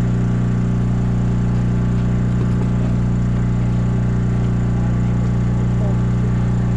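Generator engine running at a constant speed with a steady drone, powering the boat's LED flood lights.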